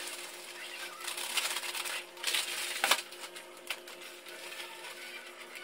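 Thin plastic bag crinkling and rustling as it is handled and opened, with a run of small crackles and one sharp click a little before three seconds in, over a faint steady hum.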